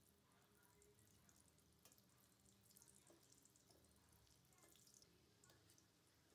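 Faint crackling of pitha pieces frying in hot oil in a steel karahi, with a few light clicks of a metal spatula against the pan as the pieces are turned.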